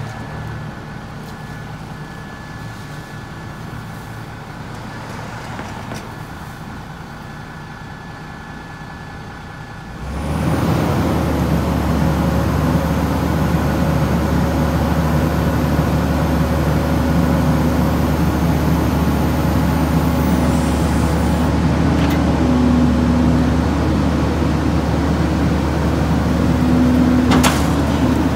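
Heil 5000 rear-loader garbage truck idling, then about ten seconds in the engine speeds up as the hydraulic packer cycle starts, and it holds a steady, louder drone. The packer blade sweeps the Christmas trees from the hopper into the body. A higher hydraulic tone strains briefly twice near the end, and there is one sharp click.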